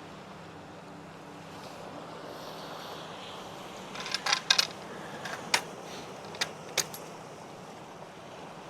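Small hard objects clinking and clicking, metal-sounding: a quick cluster about four seconds in, then single clicks over the next few seconds, over a steady rush of sea and wind.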